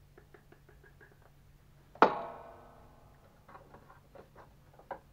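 A single sharp knock about two seconds in that rings out for about a second, from the control block being pressed onto the bait boat's plastic hull while it is glued in place; faint quick ticking before it and a few light clicks after it.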